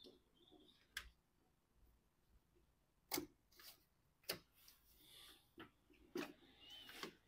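Near silence broken by a handful of faint clicks and taps, spaced irregularly a second or more apart: plastic ECU wiring connectors being handled and unplugged.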